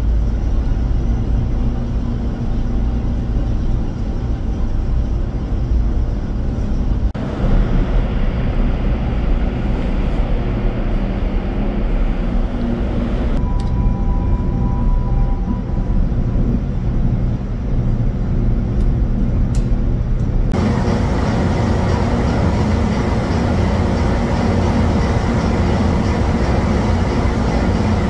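Loud, steady drone of a container ship's engine-room machinery, mostly low rumble. It changes abruptly in character three times, at about 7, 13 and 20 seconds in.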